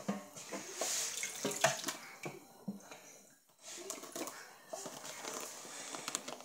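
Kitchen tap running into a stainless steel sink while a hairbrush is rinsed under it; the water sound breaks off briefly about halfway through, then carries on.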